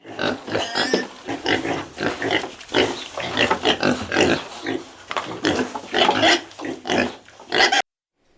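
Pigs grunting, a rapid irregular run of short calls that cuts off suddenly near the end.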